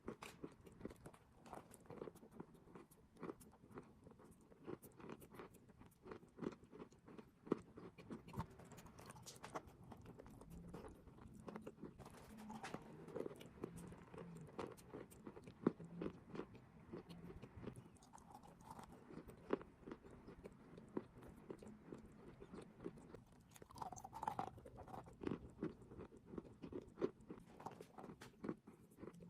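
Chalk and clay being bitten and chewed close to the microphone: a dense, irregular run of sharp crunches.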